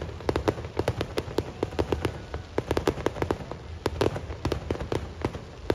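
Fireworks bursting at close range: a rapid, irregular run of sharp bangs and crackles, several a second.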